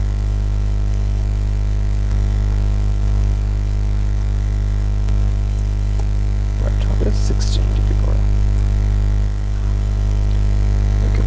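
Loud, steady low electrical hum, mains hum picked up by the recording, with a few faint brief sounds about seven seconds in.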